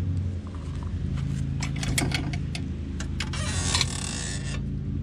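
Clicks and knocks of a wooden chicken coop's door and latch being handled and opened, then a rustling scrape about three and a half seconds in, over a steady low engine-like hum.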